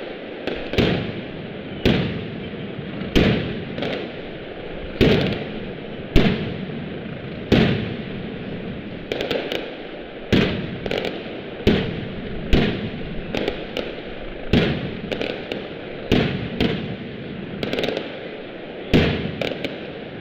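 Opening bangs of a Valencian mascletà: single aerial firecracker reports going off one after another, about one sharp bang a second, each echoing briefly off the surrounding buildings. Now and then two or three bangs come close together.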